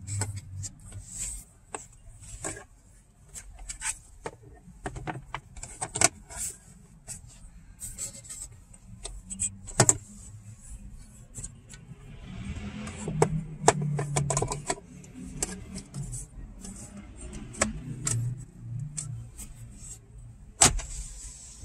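Plastic glovebox trim pieces of a Lexus UX being fitted and snapped back into place: a long run of sharp clicks and knocks, with a stretch of scraping and rattling of plastic around the middle.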